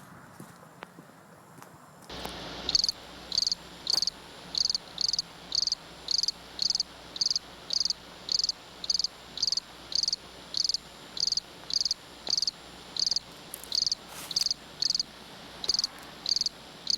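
A cricket chirping in an even rhythm, about three high-pitched chirps every two seconds, starting suddenly about two seconds in over a faint steady hiss.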